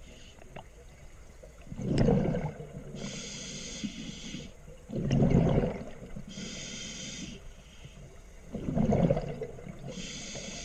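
A scuba diver breathing through a regulator underwater, slow and steady: three loud rushes of exhaled bubbles, each followed by the hiss of the demand valve on the next inhale.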